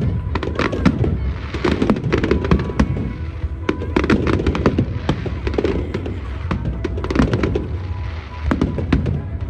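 Fireworks going off in quick succession: many sharp bangs and crackles over a low rumble, with music playing along.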